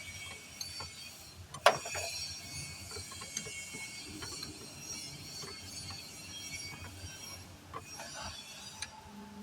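Scattered clicks and clinks of hand tools on metal, with one sharp knock about two seconds in.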